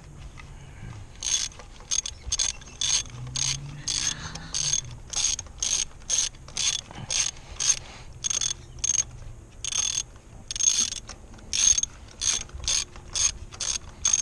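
Socket ratchet wrench clicking in short, even strokes, about two a second, as a spark plug is worked loose.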